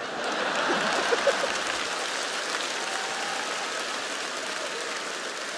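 Studio audience applauding, swelling over the first second and then holding steady, easing slightly.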